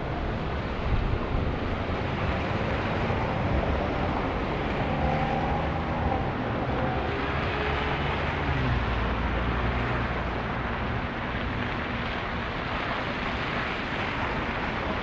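Street traffic: motor vehicles running and passing on a snowy city street, a steady rumble with one engine's hum standing out in the middle.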